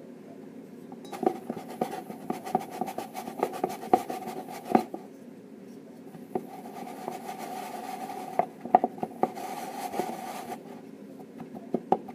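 A spoon stirring a thick dish-soap mixture in a stainless steel mixing bowl, scraping and clicking repeatedly against the metal. The stirring eases briefly about five seconds in.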